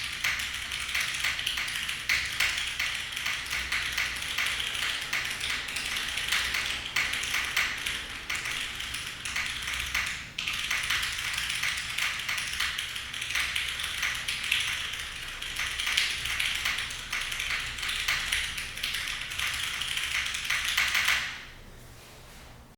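Steady fast typing on a mechanical keyboard with an aluminum plate, lubed vintage Cherry MX Black linear switches and GMK keycaps: a dense run of keystroke clacks. There is a short break about ten seconds in, and the typing stops a second or two before the end.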